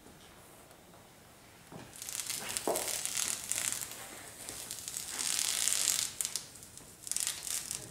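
Blue masking tape being peeled off in long strips in three spells, beginning about two seconds in. It is pulled away from beside a freshly smoothed silicone sealant joint while the sealant is still wet.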